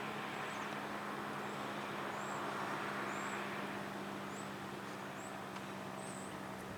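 A road vehicle passing by, its noise swelling to a peak about halfway through and then fading, over a steady low hum and short, faint high chirps.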